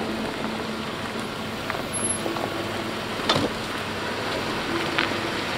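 Off-road vehicle driving slowly over a rough, washed-out dirt trail: a steady rumble of engine and tyres with a few sharp knocks, the loudest about three seconds in.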